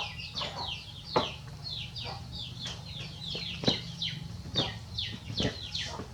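Chicks peeping over and over, short falling chirps several a second, with a few sharp knocks and a low steady hum underneath.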